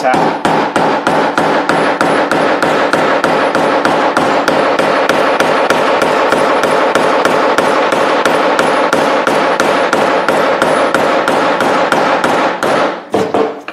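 Rubber mallet tapping a metal sleeve insert into a greased polyurethane bushing in an upper control arm's eye, a quick steady run of blows at about four a second that stops near the end.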